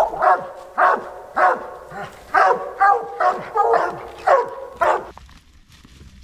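Treeing walker coonhounds barking at a tree with an animal treed, a quick run of about eleven barks, roughly two a second, that stops about five seconds in.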